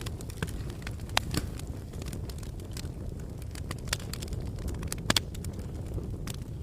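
Open fire crackling and popping irregularly over a steady low rumble, with a few louder pops.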